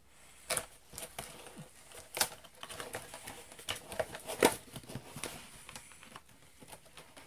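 Cardboard box and plastic packaging being handled as a toy shotgun is unboxed: scattered crinkles, rustles and light taps, with one sharper knock a little past halfway.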